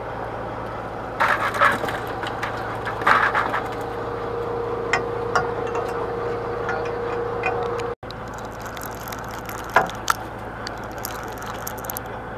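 Fishing boat's engine running with a steady drone and a constant tone, overlaid by bursts of scraping and rattling from rod, reel and fish handled close to the microphone, loudest about one and three seconds in, then scattered sharp clicks.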